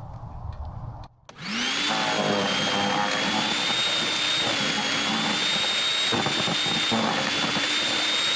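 Electric wood chipper starting up about a second and a half in, its pitch rising quickly, then running steadily with a loud high whine.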